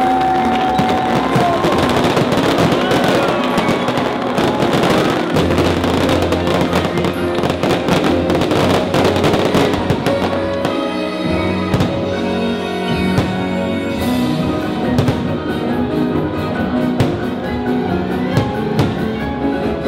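Fireworks bursting in rapid succession over loud show music with drums. The bangs come thickest in the first half, then thin out to occasional bursts while the music carries on.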